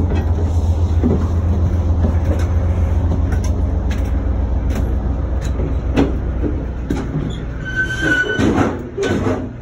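Low, steady rumble of a VIA Rail passenger train standing at the platform, heard from its steps and vestibule, with scattered knocks of footsteps on the metal steps and floor. A brief high squeal comes about eight seconds in, and the rumble drops about a second later as the coach is entered.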